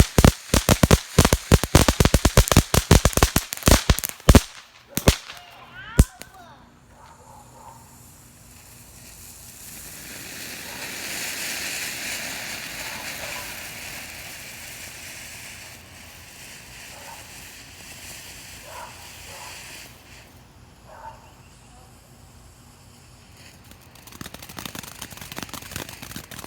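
Reloadable firework fountain going off: a rapid run of sharp crackles and pops for about the first six seconds, then a steady hissing spray of sparks that swells and slowly dies away, and light crackling again near the end.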